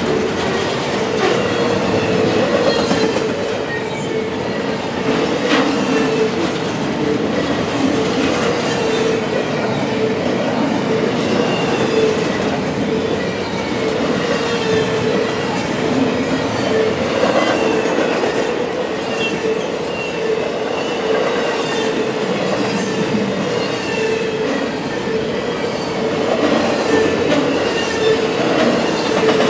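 Double-stack container train's well cars rolling steadily past, with the clatter of wheels over the rails and short high-pitched wheel squeals coming and going.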